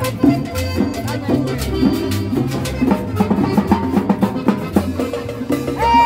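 Live band playing Latin dance music: an upright double bass walks a low bass line under hand drums and percussion. A short rising-and-falling high tone sounds near the end.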